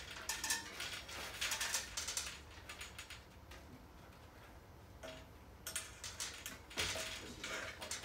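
Light metallic clinking and rattling of hardware being handled, in clusters of quick clicks over the first couple of seconds and again near the end, with a quieter gap between.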